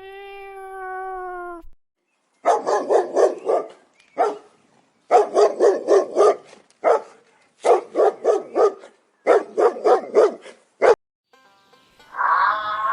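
A dog barking in quick runs of several sharp barks, about four or five a second, with short pauses between the runs. A cat's meow trails off just before it, and music comes in near the end.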